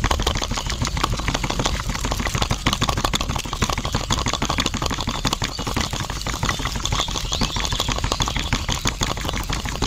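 Small electric motor and plastic gearing of a toy concrete mixer running, turning its drum of wet concrete mix. It makes a fast, rattly clicking over a steady low hum.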